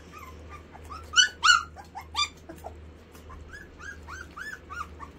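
Kerry Blue Terrier puppies, almost four weeks old, whimpering and yelping: a string of short, high, squeaky cries, with louder yelps a little over a second in and again around two seconds.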